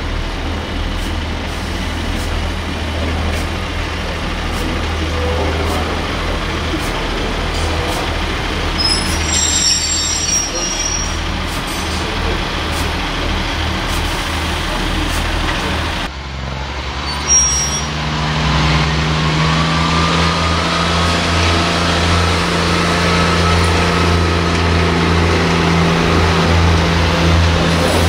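Underfloor diesel engines of Pacer railbuses: a Class 144 pulling out of the platform with a steady low engine note, then a Class 143 running with its engine note rising slightly in pitch. There is a sharp knock shortly after the change.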